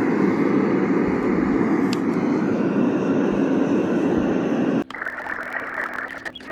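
A white noise sound machine plays a steady, deep rushing noise. About five seconds in it switches abruptly to a quieter, hissier noise sound.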